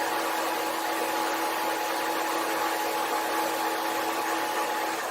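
Mini lathe running steadily: its motor gives a constant hum of two steady tones over an even hiss.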